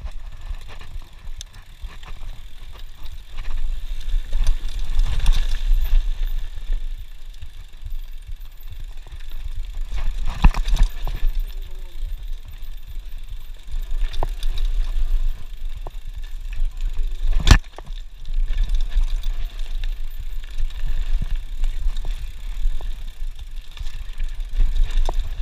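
Wind rumbling on a helmet-mounted action camera's microphone as a mountain bike rides down a rough dirt and rock trail, with the bike rattling and knocking over the bumps. One sharp knock stands out about two-thirds of the way through.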